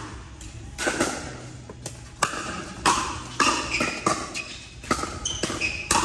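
A pickleball rally: paddles striking the hard plastic ball in a run of sharp pops about half a second to a second apart.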